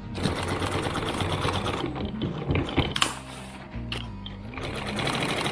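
Sewing machine stitching through laminated sailcloth, the needle running in a fast rattle for about two seconds, stopping, then running again near the end.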